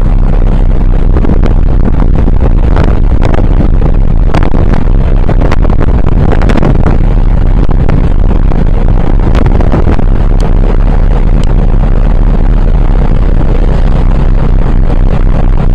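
Loud, steady wind rumble buffeting the microphone on a moving ferry, with scattered crackles.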